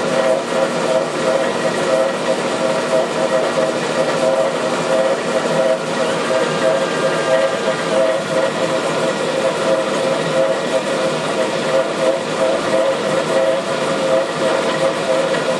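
Glass lathe running with its burner flame hissing steadily on the spinning glass tube, under a steady two-tone hum that does not change.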